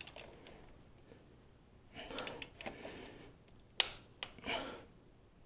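Click-type torque wrench on the top bolt of a brake booster vacuum pump, being pulled up to its 18 foot-pound setting: soft handling noise and faint breaths, then one sharp click a little under four seconds in as the wrench breaks at torque.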